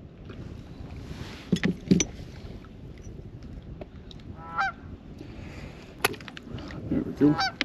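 Geese honking in two short bouts, about four and a half seconds in and again near the end, over a low wind rumble. Several sharp knocks and thumps, the loudest about two seconds in.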